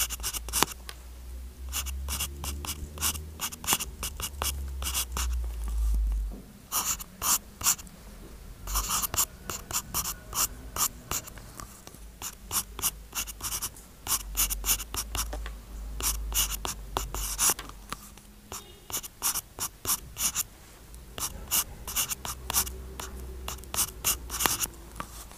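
Stylus writing by hand on a paper-like matte screen protector: quick scratchy strokes and light taps in irregular bursts with short pauses. A low rumble comes and goes underneath.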